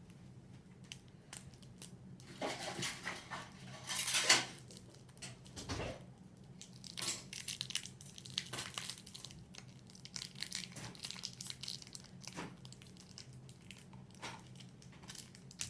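Small plastic container and soft modelling clay being handled: irregular rustling, crinkling and scraping with a few clicks as the blue clay is dug out, the loudest burst about four seconds in. A faint steady hum lies underneath.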